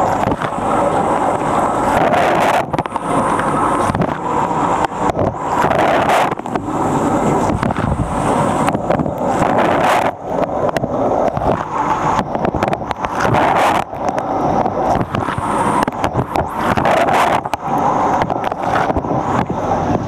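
Water jets from a Fisher & Paykel Nautilus dishwasher's spray arm pounding and splashing over a camera in the rack during the wash cycle: a loud, unbroken, churning rush of water heard from inside the machine.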